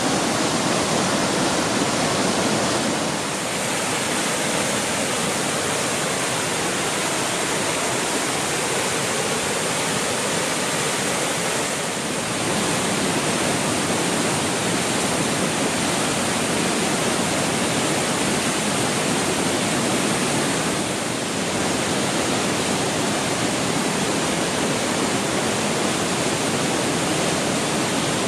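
Waterfall: a steady rush of falling water, its level dipping slightly and briefly about three times.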